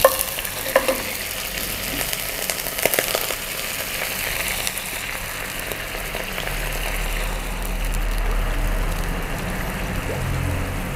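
Boiled beef and a bone ladled into a hot pan: a few knocks of the metal ladle in the first seconds, then steady sizzling.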